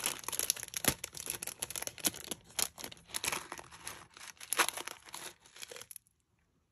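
Thin clear plastic bag crinkling and rustling as it is pulled open and handled, with a few sharper tearing crackles; it cuts off abruptly near the end.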